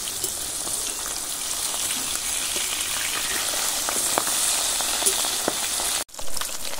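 Pabda fish frying in hot mustard oil in a steel karahi: a steady sizzle with scattered crackling pops of spattering oil. The sound cuts out for an instant near the end, then resumes.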